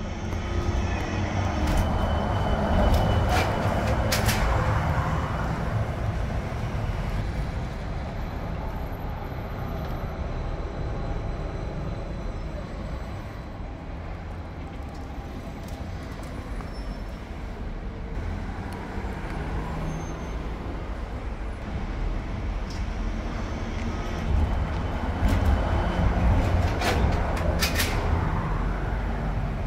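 City street traffic with articulated trolleybuses passing close by. The rumble of tyres and motors swells as a bus goes past near the start and again near the end, with a few sharp clicks during each pass.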